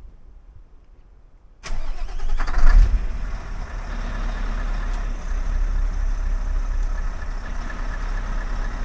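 Scania truck's diesel engine starting about two seconds in, rising briefly, then idling steadily, heard from inside the cab. It is being started to test a gearbox fault.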